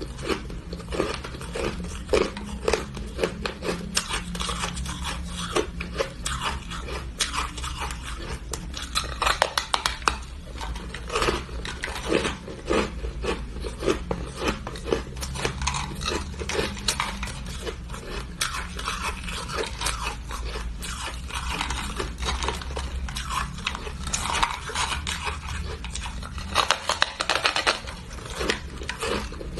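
Frosty moulded ice being bitten and chewed up close: a dense run of sharp crunches, cracks and scraping of teeth on ice, over a low steady hum.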